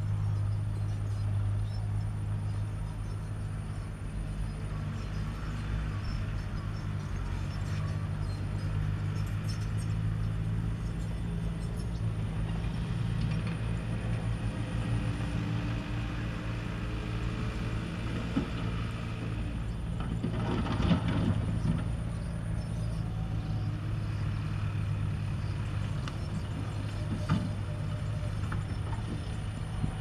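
Diesel engines of dump trucks and a small Komatsu D21A bulldozer running steadily at a distance, a low continuous drone. About two-thirds of the way through there is a brief louder burst of noise, and a sharp knock near the end.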